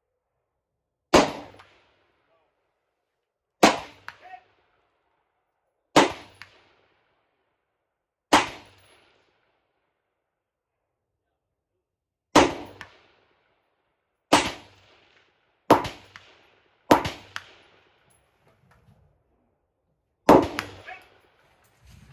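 Nine rifle shots fired one at a time at uneven intervals of one to four seconds, each a sharp crack with a short echoing tail.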